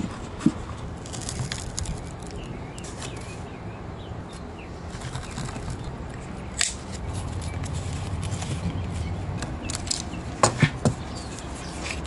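Hands handling wooden parts and a leather strip on a workbench, rustling, with a few sharp clicks from a hand tool, including three quick clicks near the end, over a steady low rumble.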